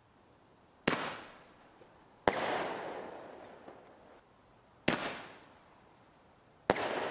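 Consumer fireworks going off: four sharp bangs about one and a half to two and a half seconds apart, each echoing and fading away over a second or two.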